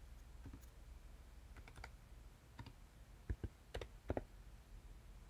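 Faint keystrokes on a computer keyboard: about eight separate clicks spread irregularly, with pauses between them.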